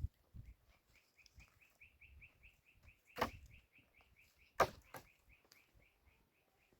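A bird chirping over and over in an even run of short, high chirps, about five a second. Two sharp knocks stand out over it, about three and four and a half seconds in.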